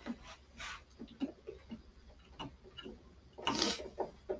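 Scattered light knocks and clicks of hard polyethylene utility cart parts being handled and fitted together, with a short scrape or rustle about three and a half seconds in.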